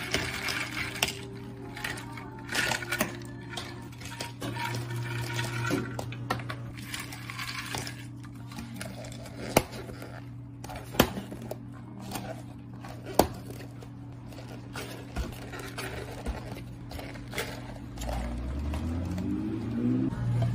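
Ice cubes clattering from a scoop into plastic cups, then three sharp clicks as plastic dome lids are snapped onto the cups. A steady low hum runs underneath, and music comes in near the end.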